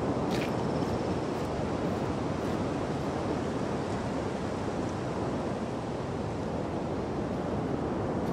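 Steady, even rushing noise with no clear pitch, like wind over the microphone, with a few faint ticks near the start.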